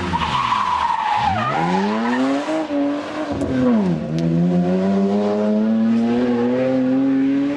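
BMW 3 Series rally car at full throttle through a corner, with tyre noise. The engine note falls sharply about a second in and again near four seconds, recovering each time. Then it climbs steadily as the car accelerates away.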